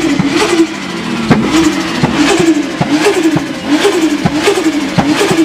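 Big single-turbo engine in a modified Nissan S14, blipped by hand at the throttle, its revs rising and falling in short bursts about twice a second, with sharp cracks among them.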